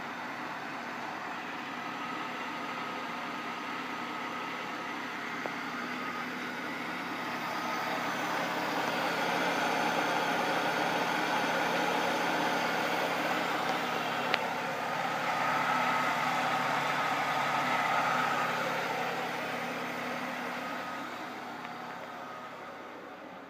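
Jaguar X300's 4.0-litre straight-six idling steadily while running only on petrol vapour drawn from a can into the throttle body, with the fuel pump disconnected. It grows louder through the middle and fades toward the end, with a single sharp click about two-thirds of the way through.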